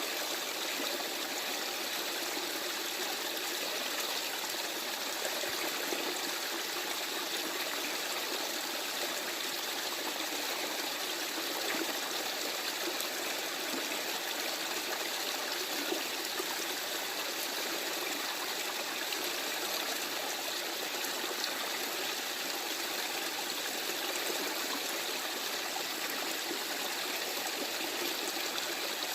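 Stream water running over stones, a steady babbling flow with no break or change.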